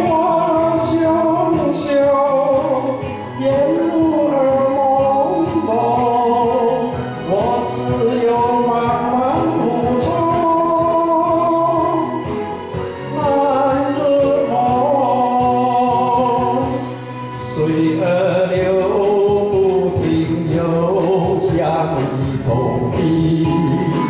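A man singing a Mandarin ballad over instrumental accompaniment, in long melodic phrases with short breaths between them.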